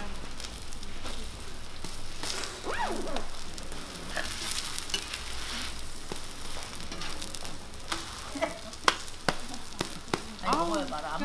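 Korean chive pancakes sizzling steadily in oil on a large round griddle, with sharp clicks and scrapes of a metal spatula against the griddle in the second half.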